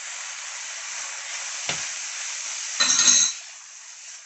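Chicken mince and peppers sizzling in a non-stick frying pan as they are stirred, with a knock about two seconds in and a louder, ringing clatter of a utensil against the pan around three seconds in. The sizzle eases after the clatter.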